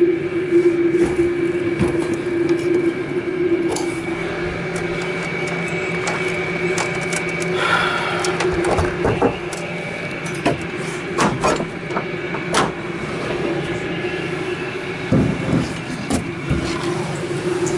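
A steady machine hum, with scattered sharp clicks and knocks from hands handling wires and metal near a rooftop hatch, mostly in the middle and later part.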